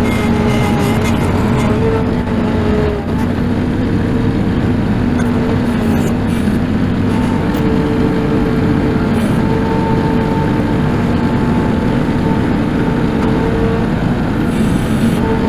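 Tractor engine running steadily, with its pitch shifting a little under changing load.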